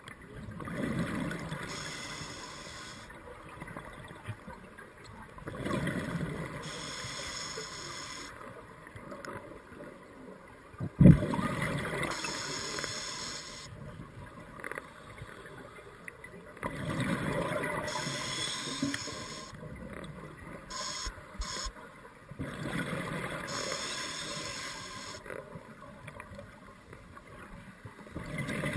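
Scuba diver breathing through a regulator underwater, heard muffled through the camera housing: a bubbling exhale swells up every five to six seconds. A single sharp knock comes about eleven seconds in.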